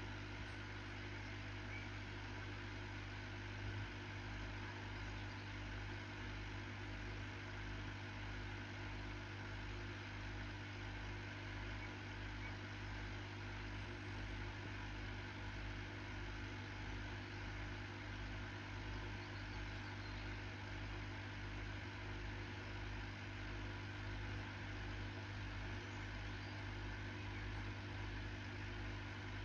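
Steady low hum of running aquarium equipment (filter or air pump). About four seconds in, a regular low pulsing of roughly one and a half beats a second joins it.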